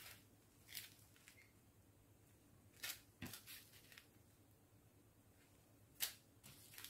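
A handful of brief, soft crinkles of small plastic bags of diamond painting drills being picked up and handled, otherwise near silence.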